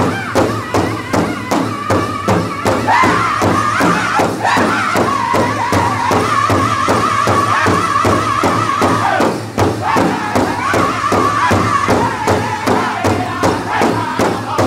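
Northern-style powwow drum group singing high-pitched in unison over a large hide powwow drum struck together by many drummers in a steady fast beat, about three strokes a second. The singing breaks off briefly about nine and a half seconds in while the drumbeat carries on.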